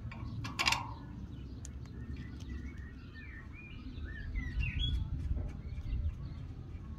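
Birds chirping, with a run of short rising chirps in the middle, over a low steady rumble. A brief sharp sound about half a second in.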